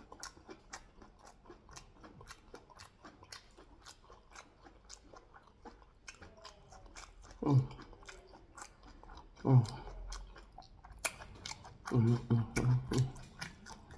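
Close-up chewing of sweet corn and pear: a steady run of small wet mouth clicks and smacks. A few short voiced sounds fall in pitch about halfway through and again near the end.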